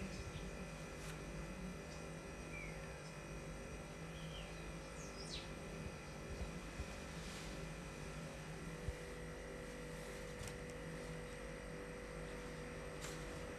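Faint, steady background noise with a low hum, with a few short, quick falling chirps from birds scattered through it.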